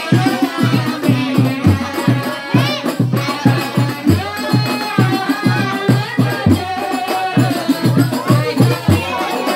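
Music led by hand-played frame drums beating a quick, steady rhythm of about three to four strokes a second, with a rattling shaker and a wavering melody line over it.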